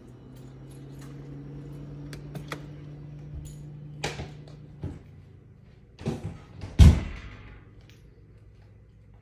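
A low steady hum that stops about five seconds in, with knocks and the bump of a house door around then, and two heavier thumps near the six- and seven-second marks, the second the loudest.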